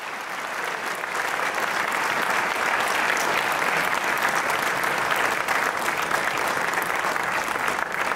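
An audience applauding. The clapping swells over the first second or two, then holds steady.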